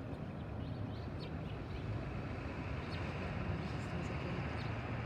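Outdoor background: a steady low hum like distant traffic, with a few faint short bird chirps.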